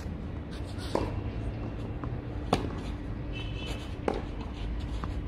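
Tennis rally on a clay court: racket-on-ball strikes about every one and a half seconds. The near player's shot, about two and a half seconds in, is the loudest and sharpest; the far player's shots are fainter, with softer ball bounces between, over a steady low hum.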